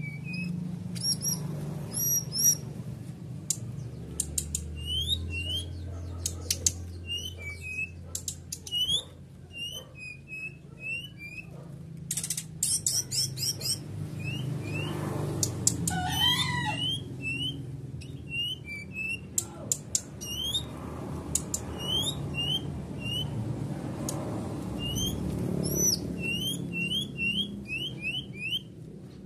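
Caged brown-chested jungle flycatcher (SRDC) calling: a long run of short, rising chirps, often in quick pairs or runs, with some thin higher notes and sharp clicks among them. A steady low hum runs underneath.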